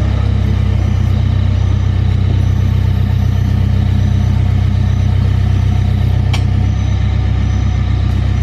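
A heavy vehicle's diesel engine running steadily at low revs, with one short click about six seconds in.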